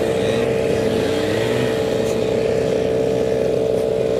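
A small engine droning at one steady pitch.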